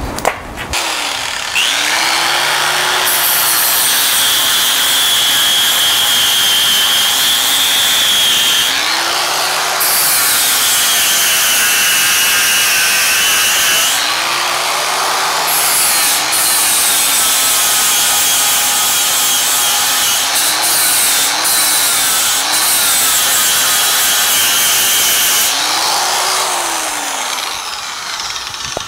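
Electric angle grinder with a 36-grit flap disc grinding steel tubing. The motor whine starts about a second in and dips in pitch several times as the disc is pressed into the metal, then recovers. Near the end it winds down.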